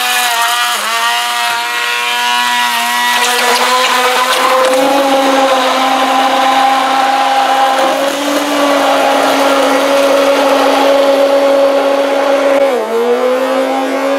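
Electric hand blender (stick blender) running continuously with its blade submerged in raw eggs, a steady motor whine whose pitch dips briefly about a second in and again near the end as it is pushed through the mix.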